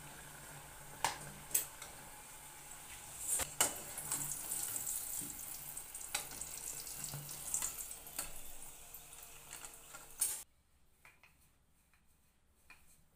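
Mandazi dough frying in hot oil: a steady sizzle, with a few sharp clinks of metal utensils (a slotted spatula and a perforated skimmer) against the metal pot. The sizzle cuts off suddenly near the end, leaving only faint taps.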